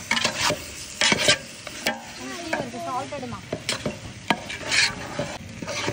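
A metal spoon stirring chicken and masala for biryani in a large metal pot, with irregular scrapes and clinks against the pot as the food sizzles.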